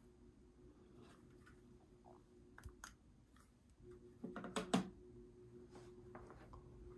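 Ceiling fan running in a small room: a faint steady motor hum. Scattered light clicks sound over it, with a louder cluster of clicks and rattling about four and a half seconds in.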